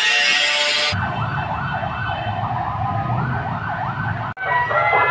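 For about the first second, an angle grinder cuts metal with a loud, high hiss, then stops abruptly. An emergency vehicle siren follows, yelping up and down about two to three times a second over a low traffic rumble, and it cuts off suddenly near the end.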